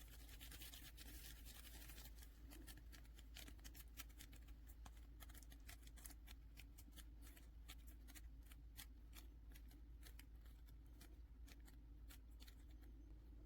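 Faint, irregular small clicks and crackles of Play-Doh Air Clay being worked by hand.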